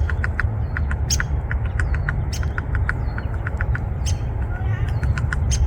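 Ladder-backed woodpecker pecking at a tree: a quick, even run of sharp taps, about four a second, with a few higher clicks among them, over a steady low rumble.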